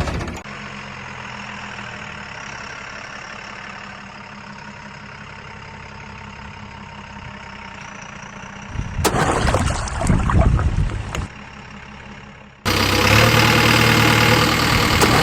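Heavy diesel engine of earthmoving machinery idling steadily. About nine seconds in comes a loud two-second stretch of knocks and rumbling. Near the end the sound jumps suddenly to a much louder engine running hard.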